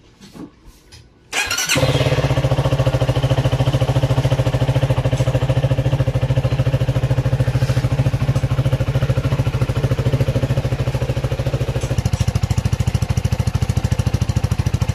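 CFMoto 300NK motorcycle's single-cylinder engine, on its stock exhaust, starting suddenly about a second and a half in and then idling steadily.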